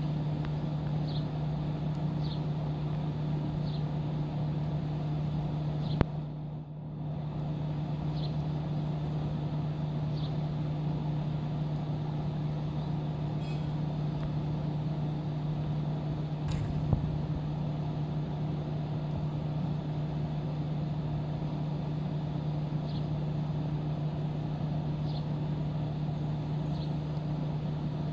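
Steady low machine hum, unchanging in pitch, with short high chirps every second or two. A sharp click about six seconds in is followed by a brief dip in the sound, and there is another click later.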